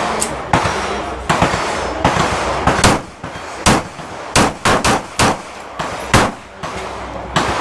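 Pistol shots on a firing range: more than a dozen sharp reports at irregular spacing and differing loudness, some close together, each trailing a short echo.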